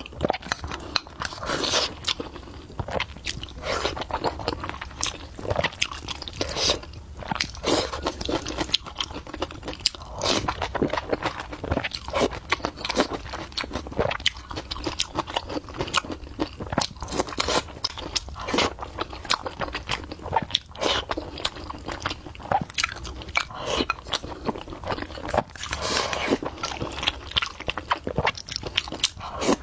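A person chewing and biting food with mouth noises, a dense run of crunchy, wet clicks.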